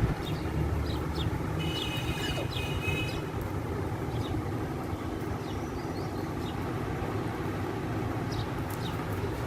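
Steady low background rumble, with short high chirps and squeaks from parrots scattered through it and one longer call lasting about a second and a half, starting about a second and a half in.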